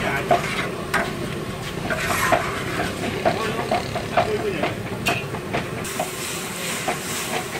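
Cooking sounds: a utensil knocking and scraping in a pot, two or three knocks a second, over a steady hiss that turns sharper near the end.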